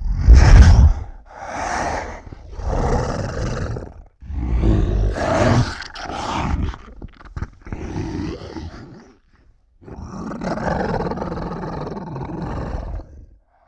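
Zilla Jr. monster roar sound effects: a run of about six roars with short gaps between them. The first, about a second long, is the loudest and deepest, and the last, near the end, is drawn out over nearly four seconds.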